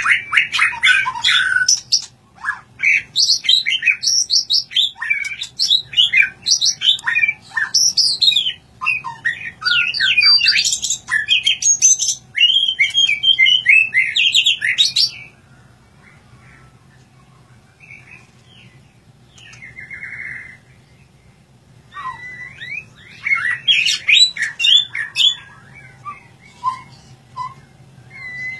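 Caged white-rumped shama (murai batu) singing quick, varied phrases of clear notes, loud and continuous for about fifteen seconds. It then falls nearly quiet and sings another short burst a few seconds before the end.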